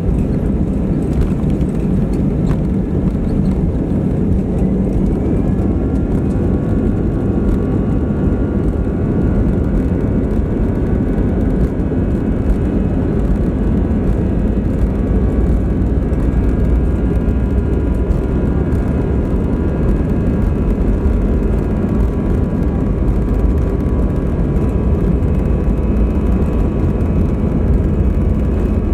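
Airbus A320 engine and airflow noise heard inside the cabin: a steady low rumble with a faint whine whose pitch creeps slowly upward from about six seconds in.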